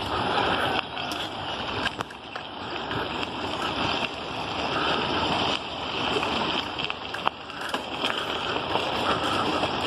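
Wind rushing over the microphone during a bicycle ride, a steady noisy rush with a few small clicks and knocks from the bike.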